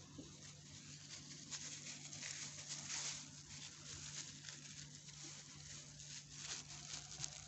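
Faint, scattered rustling and light handling noises over a steady low hum.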